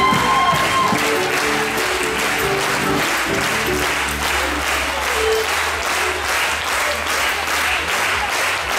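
Audience applauding steadily, with live band music under it that thins out about halfway through.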